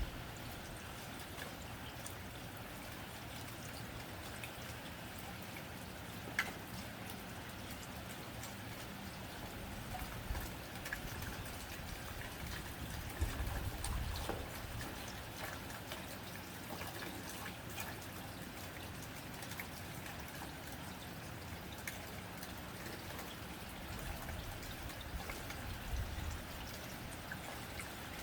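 Rain falling on a tin roof: a steady patter of drops with scattered sharper ticks, swelling slightly about a third of the way in.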